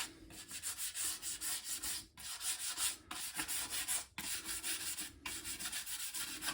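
Scouring pad scrubbing a Commodore VIC-20's plastic case with cream cleanser: quick back-and-forth strokes, several a second, with a few short breaks.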